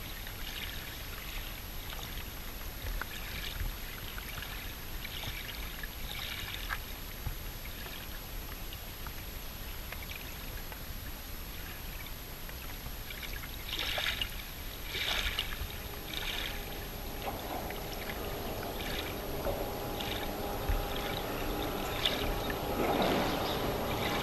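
Shallow water lapping and trickling, with a few louder splashes about two-thirds of the way through. A faint steady hum of several tones joins in from there on.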